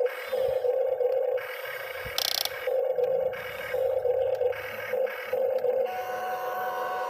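Excavator at work, its engine and hydraulics running with a tone that pulses on and off, and a short sharp hiss about two seconds in.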